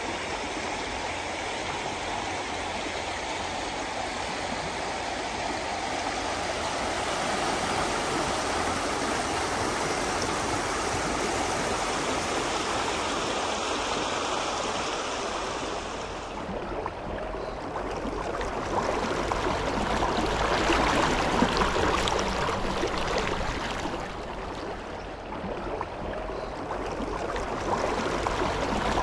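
Fast-flowing river water rushing steadily. A little past halfway the sound changes to a rougher, closer rush of water with less hiss.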